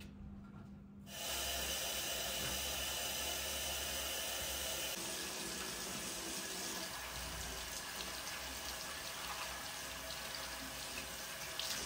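Water running from a tap into a sink, turned on about a second in and then running steadily.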